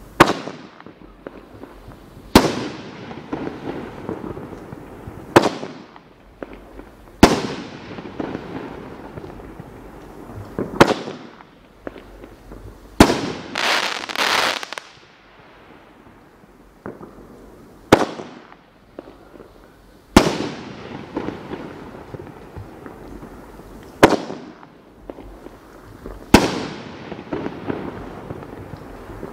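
World Class Fireworks 'Pigskin' firework cake firing its shots: about ten loud bangs two to four seconds apart, each bursting in the sky and trailing off into a scatter of smaller pops and crackle. Near the middle a loud hiss swells for about a second and a half between bursts.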